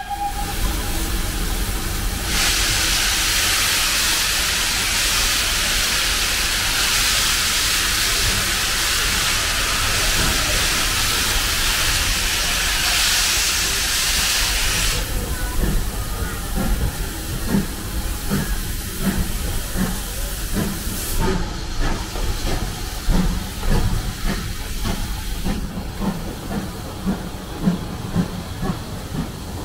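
A steam locomotive pulling away with its train: a loud hiss of steam begins a couple of seconds in and stops abruptly about halfway through. After that the locomotive's exhaust beats are heard as a slow rhythmic chuffing over the rumble of the carriages. A short whistle note ends right at the start.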